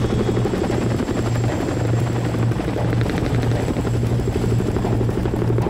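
Chinook tandem-rotor helicopter heard from inside the cabin: a loud, steady, rhythmic beat of the rotors and engines with a thin high whine over it, as it sets down with the ramp open.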